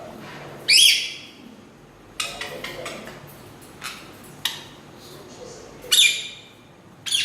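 Lory parrot and other birds squabbling: three loud, shrill screeches, about a second in, about six seconds in and just before the end, with a quick run of short harsh calls around two to three seconds in and two sharp chirps a little later.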